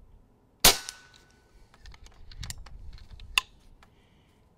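A single shot from an unregulated .22 calibre pre-charged pneumatic air rifle: one sharp crack just over half a second in, with a short ring-off. It is followed by a string of small mechanical clicks and one sharper click a little over three seconds in, as the action is worked.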